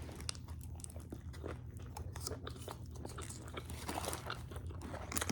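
A person chewing food close to the microphone, with irregular crunching bites, over a steady low hum.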